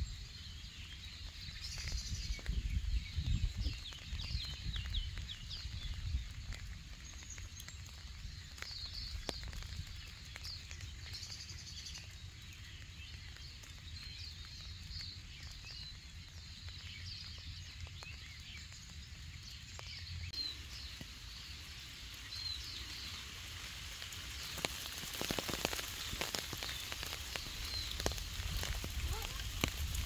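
Small birds chirping and singing, many short high calls all through, over a steady patter and hiss of light rain.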